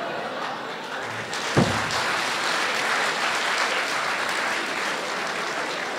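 Theatre audience applauding steadily, with a single thump about one and a half seconds in.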